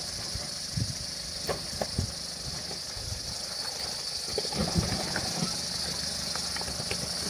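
Nissan four-wheel drive working through a gully crossing, its engine running low under a steady high hiss. Scattered knocks and thumps are heard, the loudest a cluster a little after the middle.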